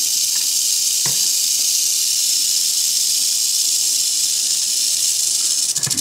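Mojave rattlesnake rattling its tail in a steady, loud, high buzz that does not let up: the defensive warning of a rattlesnake being handled.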